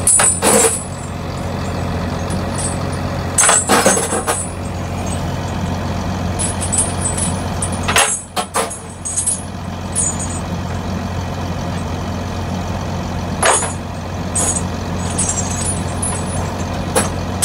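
Heavy steel flail chains on a chain flail drum clanking and clinking in short bouts every few seconds as they are handled. A steady low engine hum runs underneath.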